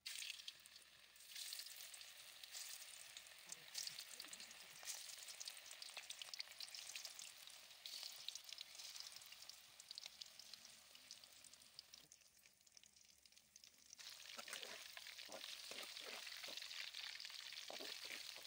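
Marinated chicken 65 pieces frying in hot oil in a kadai: a steady sizzle full of crackling spatters, which dips briefly about twelve seconds in. In the last few seconds a metal spatula stirs and scrapes the frying pieces.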